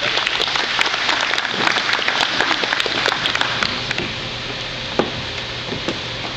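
Audience applauding, dying away after about four seconds, then a lone knock about five seconds in.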